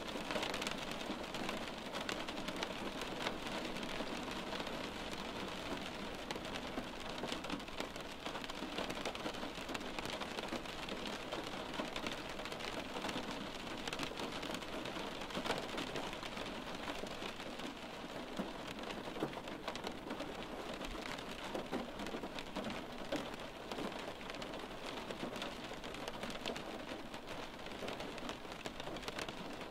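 Steady rain tapping on window glass, heard from inside: a dense, even hiss of drops with many small ticks.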